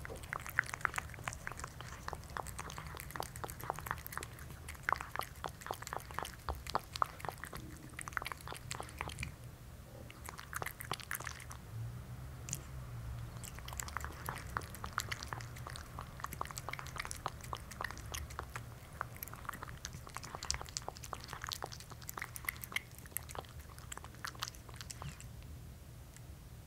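Cat eating soft wet food: rapid, wet chewing clicks, with a brief pause about ten seconds in, stopping shortly before the end.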